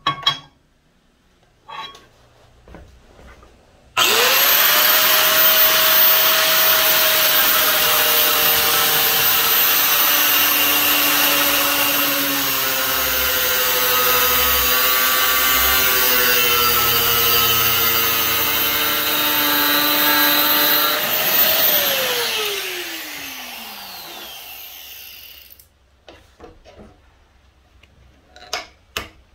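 A grinder with an abrasive disc starts about four seconds in and runs at speed with a steady whine, cutting into the steel saw-blade stock, its pitch sagging slightly under load. Near the end it is switched off and winds down, its whine falling away over a few seconds. A few light knocks from handling come before and after.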